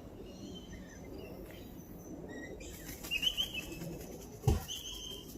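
Birds chirping and calling, with a run of short, repeated high notes starting about halfway through. There is a single thump a little after the middle.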